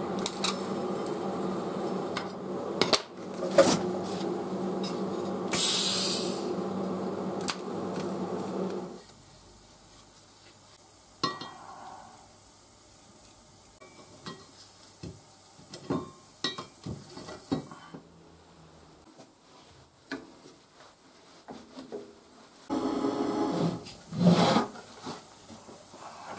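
TIG welding arc on steel running steadily for about nine seconds, then light clinks and taps of small steel pieces being handled on a steel workbench, with a second short burst of arc near the end.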